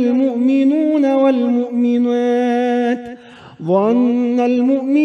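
A man reciting the Quran in Arabic in a slow, melodic chanted style, drawing out long held notes. There is a short pause about three seconds in, then his voice glides up into the next long note.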